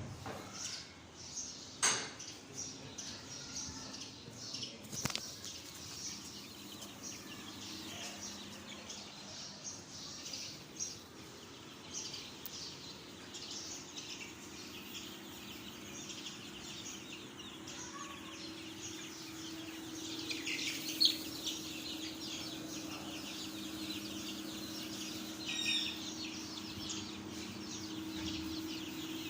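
A flock of young chicks peeping continuously, many short high chirps overlapping, over a steady low hum.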